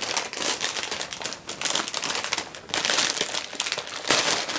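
Crinkly packaging being handled and crumpled in uneven bursts as a laptop sleeve is taken out of its wrapping.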